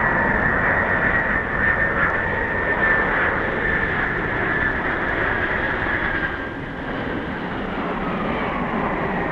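Boeing 747 jet engines running on final approach: a steady high whine over a broad rumble. The whine fades about six seconds in, and a lower tone falls in pitch near the end.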